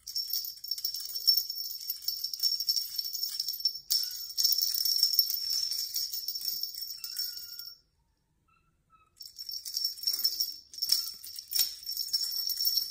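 Small jingle bell on a feather wand cat toy jingling continuously as the toy is waved and batted by a kitten. The jingling stops dead for about a second and a half after about eight seconds, then resumes.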